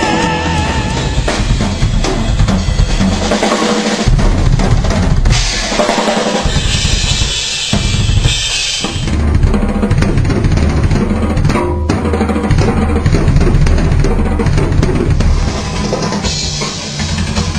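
Heavy metal music led by a rock drum kit: bass drum, snare and cymbals playing hard.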